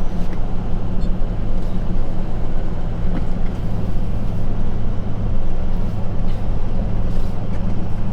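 Ford 6.0 Powerstroke V8 turbo-diesel in an F-250 running steadily while the truck drives, a constant low engine drone mixed with road noise, heard from inside the cab.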